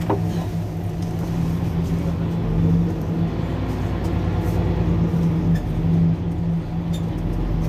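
Mercedes-Benz Citaro C2 Hybrid city bus standing stationary with its engine running at idle: a steady low hum.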